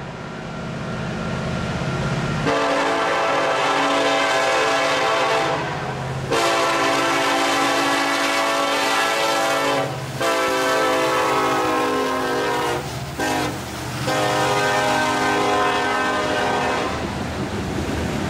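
Union Pacific diesel freight locomotive's multi-note air horn blowing for a grade crossing: several long blasts, a short one, then a final long one. Beneath it the locomotive engines run as the train passes at speed. After the horn stops, near the end, the rumble and rattle of freight cars rolling by.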